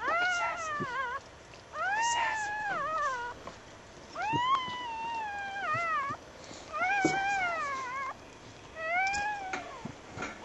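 Newborn puppy crying: five high-pitched mewing cries, each about a second long, rising then falling, about every two seconds.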